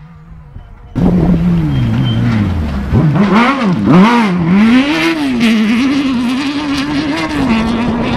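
Off-road rally buggy's engine, faint for about a second, then suddenly loud and close. The revs fall as it slows, then rise and fall several times as it is driven hard through the gears, settling to a steadier note near the end.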